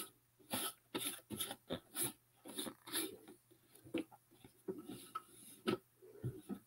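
Hands rubbing and pressing decoupage paper onto the sides of a cardboard box: an irregular run of short rustles and scrapes.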